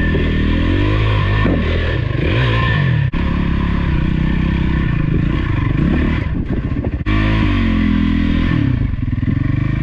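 Dirt bike engine revving hard, its pitch rising and falling as the rider works the throttle climbing a steep hill. The sound breaks off sharply twice, about three and seven seconds in.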